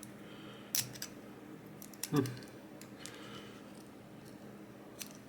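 A few sharp small metal clicks and scrapes of a tool working at the circlip on a lock plug, the loudest about two seconds in.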